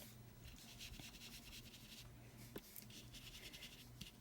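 Faint rubbing and scratching of a blender brush working ink onto paper in short strokes, with a couple of light taps.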